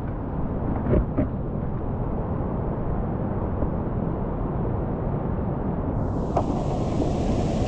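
Whitewater rapids rushing around a kayak, a steady churning water noise rumbling on the microphone, with two short knocks about a second in. About six seconds in the rush turns brighter and hissier.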